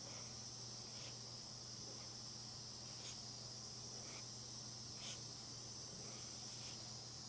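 Faint light scrapes and taps, about one a second, of a putty knife spreading body filler over a car panel, under a steady high hiss and low hum of background noise.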